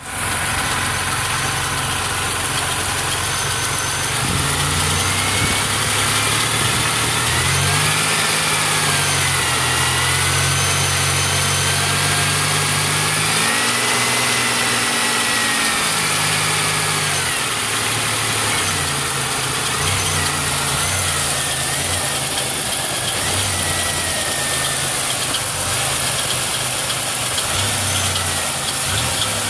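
1999 Pontiac Grand Prix running, its engine note shifting up and down, with a thin high squeal that wavers in pitch, strongest through the middle. This is the 'ting'-turning-to-squeal that comes on left turns or with the nose up, a noise that has gone along with repeated failures of the passenger-side front wheel hub bearing.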